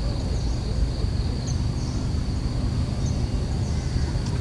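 A steady low rumble, with a continuous high-pitched insect drone over it and two faint bird chirps.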